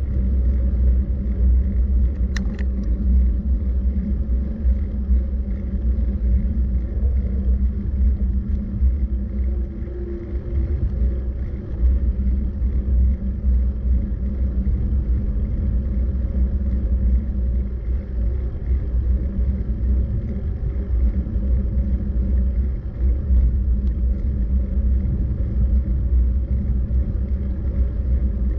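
Steady low rumble of road and wind noise on a moving camera, with a faint steady hum over it and a single sharp click about two and a half seconds in.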